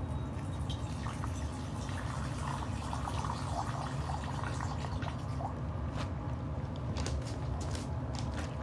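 Miniature pinscher puppies eating kibble from a plastic bowl: wet chewing and lapping, with a run of small clicks in the last couple of seconds as food knocks against the bowl. A steady low hum lies underneath.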